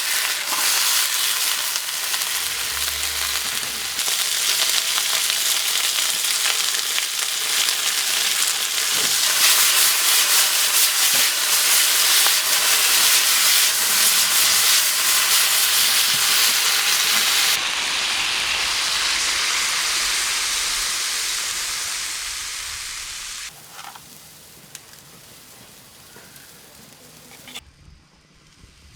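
Chicken wings frying in hot oil, a dense sizzle full of small crackles and pops. It gets much quieter about three quarters of the way through and fades low near the end.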